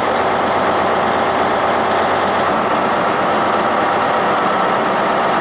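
Diesel engine of a Class 43 HST power car running steadily at idle while the train stands at the platform.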